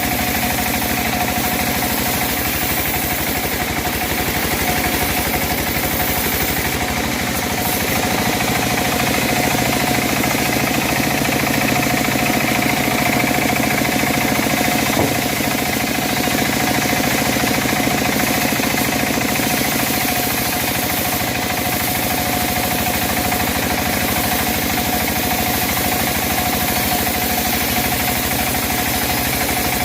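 Engine driving a homemade bandsaw mill runs steadily as it saws teak. It gets a little louder for a stretch in the middle.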